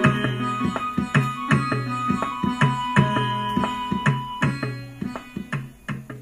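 Background music: regular drum strokes over steady held tones, fading down near the end.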